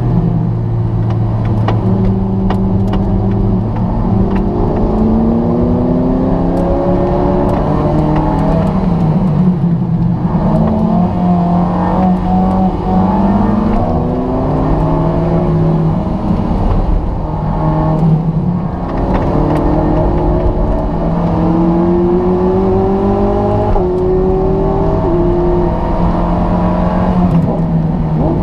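Alfa Romeo 4C's turbocharged four-cylinder engine heard from inside the cabin at speed on track, repeatedly revving up through the gears and dropping back in pitch at gear changes and under braking.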